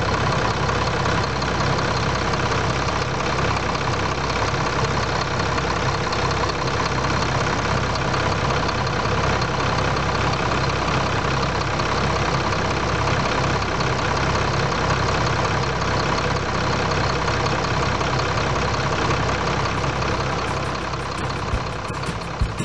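Mercedes-Benz 1728 truck's diesel engine idling steadily, heard close up at the engine.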